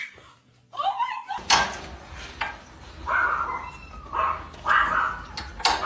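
A pet animal crying out again and again in short pitched calls, over a low steady hum.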